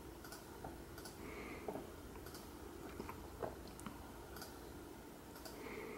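Faint, irregular clicks over quiet room noise, roughly one a second: a computer's pointer being clicked through the tabs of 3D-printer slicer settings.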